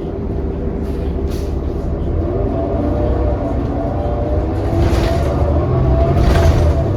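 New Flyer XD40 transit bus under way, its engine and drivetrain running with a steady low rumble and tones that climb gently as it gathers speed. Two short hisses come near the end.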